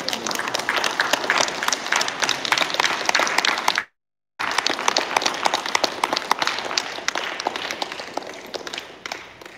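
Audience applauding at the close of a talk, a dense patter of many hands clapping that fades near the end. The recording cuts out for about half a second about four seconds in.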